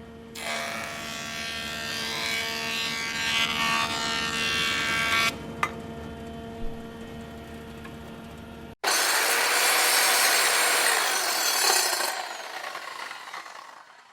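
A power tool in a wood shop cutting wood in two long, loud passes: a steady motor hum, then a loud grinding noise for about five seconds, back to the hum with a couple of small clicks. After an abrupt break a second loud pass follows, its motor tone dropping under load before the noise tapers away.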